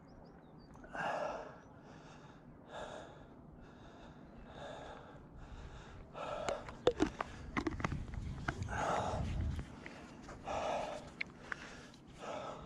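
A man breathing hard, with deep panting breaths about every two seconds, out of breath from the effort of pushing a heavy e-bike up a steep hill. A cluster of clicks and knocks with a low rumble comes around the middle.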